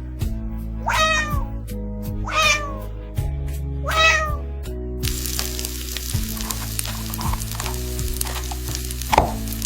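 Three cat meows, each sliding down in pitch, over background music with a steady low bass line. About halfway through, a crackling sizzle starts and runs on under the music.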